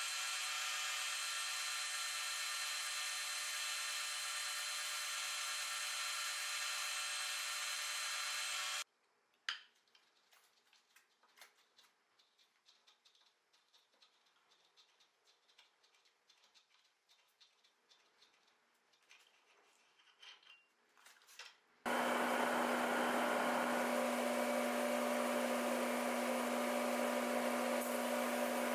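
Metal lathe running, turning a steel tensile specimen: a steady machine whine with several fixed tones that stops about nine seconds in. Then near silence with a few small clicks, until a steady hum with a low tone and hiss starts about 22 seconds in, the propane-fired heat-treating setup's burner running.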